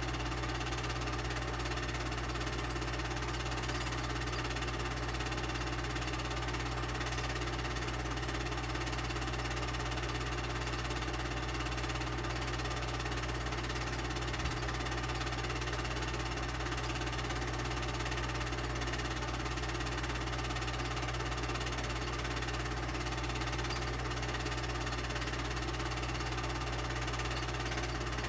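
Film projector running: a steady mechanical whir over a low hum, unchanging throughout.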